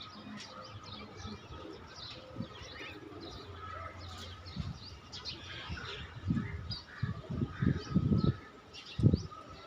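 Birds chirping and twittering in many short, quick calls over a steady high tone. In the second half come a series of loud, low thumps or rumbles.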